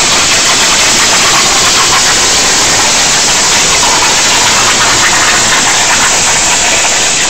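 CNC plasma torch cutting 11-gauge sheet on a water table: a loud, steady hiss of the arc and its air stream.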